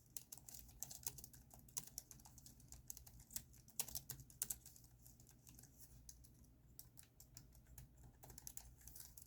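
Faint typing on a very quiet keyboard: soft, irregular key clicks, several a second, thinning out about halfway through.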